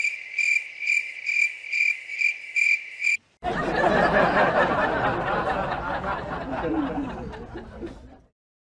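Cricket chirping in an even pulse, about two and a half chirps a second, for about three seconds. After a short break comes a rough, noisy sound that fades out over about five seconds.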